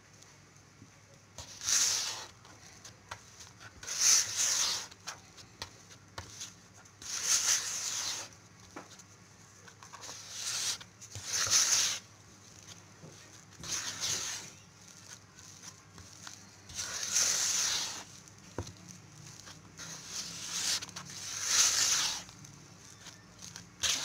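Spatula stirring and scraping stiff flour-and-butter cookie dough against the sides of a bowl: a soft rasping stroke about every two seconds, nine or so in all.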